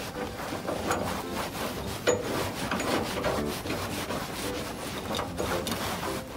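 A caster's threaded stem being screwed by hand into the foot of an industrial sewing machine table's leg: an uneven rubbing, scraping sound as it is turned, with one sharp knock about two seconds in.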